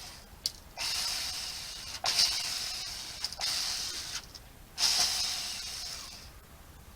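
Saker mini cordless electric chainsaw run in short bursts: four times its chain comes up to speed sharply with a hissing rattle, then dies away over about a second.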